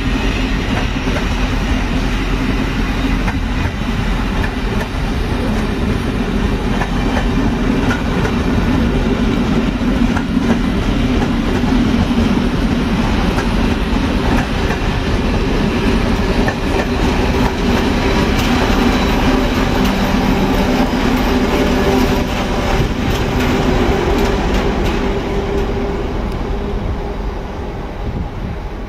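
Passenger train of coaches rolling past, wheels clattering over the rail joints, with the steady engine sound of a diesel locomotive in it. The sound eases off near the end as the train draws away.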